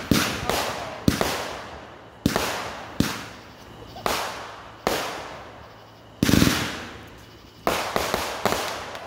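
Consumer aerial fireworks firing a series of shots and bursts: about a dozen sharp bangs, each trailing off in an echo, roughly one a second, with the loudest about six seconds in and a quick run of four near the end.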